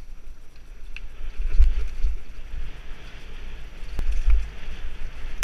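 Mountain bike descending a dirt woodland trail at speed: wind buffeting the ride camera's microphone with a heavy rumble that swells and eases, over the hiss of tyres on dirt. A few sharp knocks as the bike rattles over bumps.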